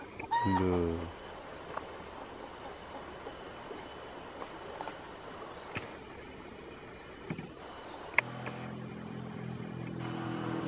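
Insects in the forest shrilling steadily on one high tone. About half a second in, a short, loud, pitched sound like a brief voice cuts across it, and in the last two or three seconds a low motor hum rises beneath.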